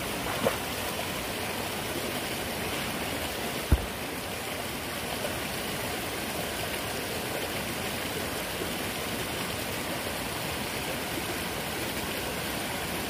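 Stream water rushing steadily over rocks, with a single short thump about four seconds in.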